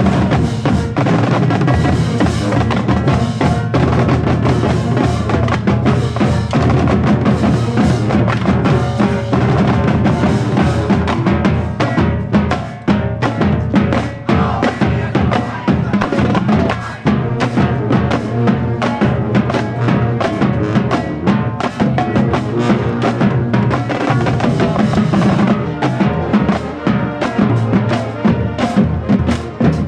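Marching band playing, with snare and bass drums driving a fast, steady stream of strokes under sustained pitched notes.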